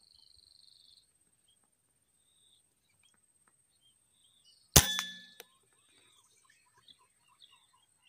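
A single air rifle shot about halfway through: one sharp crack with a short metallic ring that dies away within about half a second, followed by a small click.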